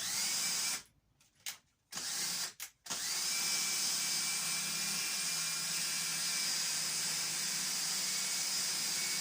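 Electric drill running in two short bursts and then steadily, its whine climbing as it spins up each time. It is spinning a stainless steel bolt held in its chuck while the bolt head is polished on oiled abrasive paper.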